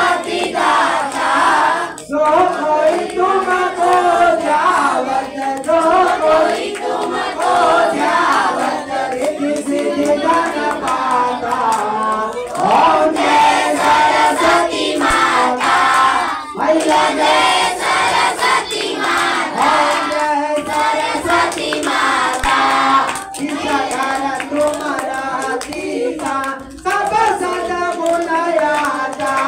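A group of voices singing a devotional song together, with hand clapping running through it.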